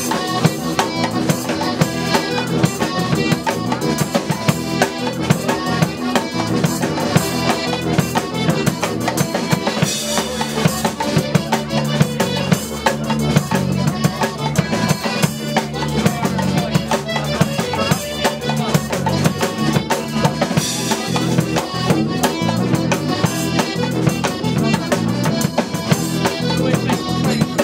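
Live folk band playing a tune: a melodeon over tuba bass, with a drum kit keeping a steady beat.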